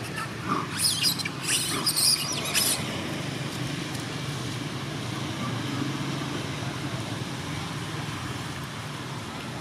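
Young macaques giving a rapid series of short, high-pitched squeals during the first three seconds. A steady low background rumble runs underneath.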